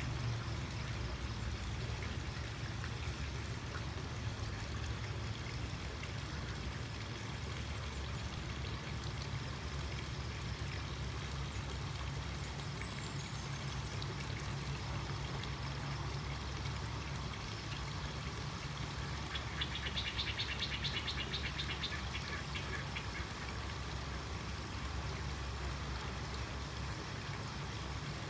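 Steady trickle of running water from a swimming pool, with a low rumble beneath it. About twenty seconds in, an animal gives a rapid trilling call lasting about two seconds.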